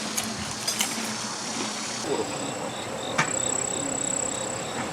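Insects chirring: a steady high-pitched buzz comes in about two seconds in, with a pulsing chirp at about three pulses a second beneath it, and a few light clicks.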